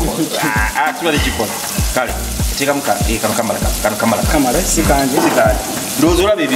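Onions, tomatoes and green peppers sizzling as they fry in oil in a metal pot, with curry powder just added. Under it runs background music with a steady, deep bass beat.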